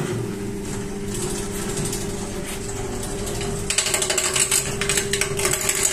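Electric woodturning lathe running steadily with a long laminated mahogany blank spinning on it. About four seconds in, a turning tool starts cutting the wood, adding a rapid rattling chatter and hiss.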